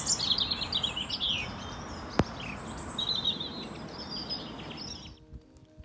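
Several wild birds singing and chirping over a steady outdoor noise bed, with one sharp click about two seconds in. The outdoor sound cuts off about five seconds in and soft music with held notes begins.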